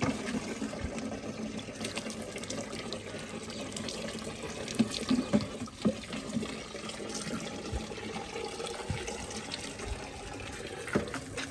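Water running steadily from a tap into a plastic tub, with water poured from a mug over a dog's wet coat and a few short splashes near the middle.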